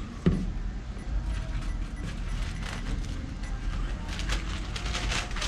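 Scattered clicks, knocks and rustling of goods being handled at a shop checkout counter, busier near the end.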